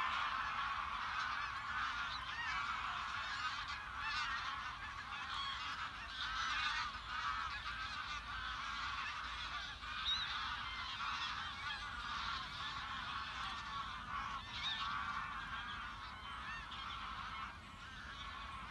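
A large flock of geese honking in flight, many calls overlapping into a dense chorus that grows a little fainter near the end.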